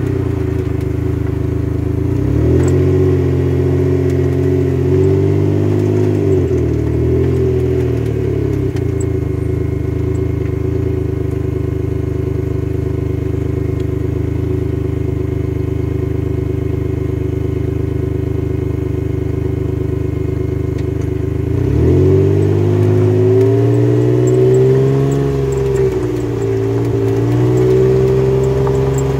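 Utility vehicle's engine running at low speed, with its pitch rising and falling as it speeds up and slows a few seconds in and again near the end, and a steady drone in between.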